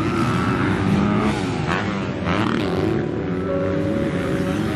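Several motocross dirt bikes revving on the track, their engines overlapping, pitch rising and falling as the riders open and close the throttle over the jumps.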